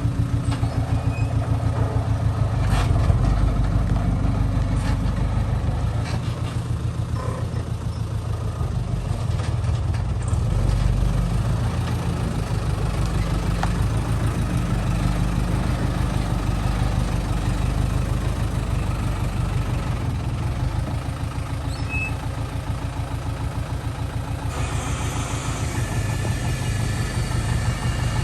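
Heavy diesel engine running steadily at low revs with a fast, even throb, on earth-moving machinery. Some added hiss comes in near the end.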